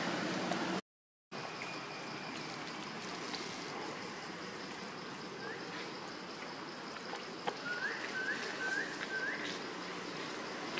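Steady outdoor background noise with a faint high steady tone; near the end a bird gives four short rising chirps in quick succession. In the first second a louder steady rushing noise cuts off abruptly.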